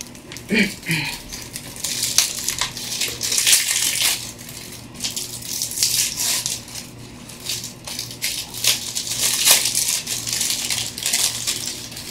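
Small paper-and-plastic firework packets being opened and handled: steady rustling and crinkling, with many light clicks and rattles throughout.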